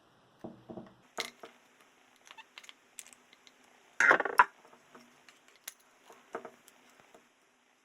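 Hand work on a small metal assembly: scattered clicks and light knocks, with a louder clatter about four seconds in.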